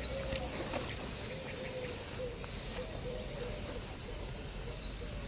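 Birds calling: quick runs of short high chirps at the start and again near the end, over a lower wavering call.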